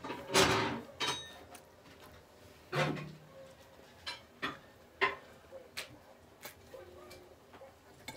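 Plastic soda bottle twisted open with a short hiss of escaping fizz, then a run of quick gulps and swallows while drinking from it.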